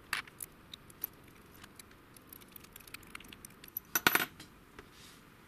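Small metal parts of a motor and gearbox clicking and clinking as they are handled, with a brief run of sharp clinks about four seconds in.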